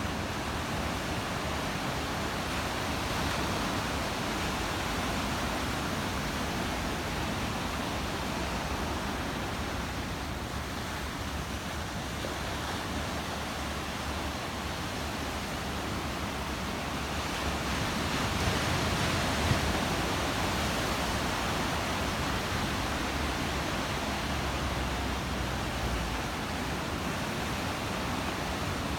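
Ocean surf: waves washing in as a steady rushing noise that swells louder for a few seconds a little past halfway.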